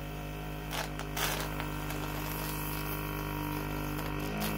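Desoldering gun's vacuum pump running with a steady hum while it sucks solder off the circuit-board pads, with brief hissing about a second in.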